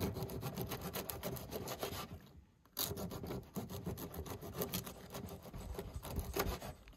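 A knife sawing through a loaf of fig and walnut bread in rapid back-and-forth strokes, pausing briefly about two seconds in before carrying on.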